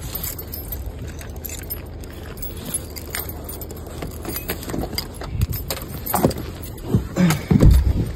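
Car keys jangling while a car door is opened and someone climbs into the driver's seat, with a few heavy thumps in the last few seconds, the loudest near the end.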